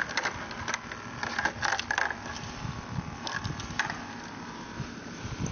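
Handling noise: scattered light clicks, knocks and rustles, bunched in the first two seconds and again around three and a half seconds in, over a low steady background hum.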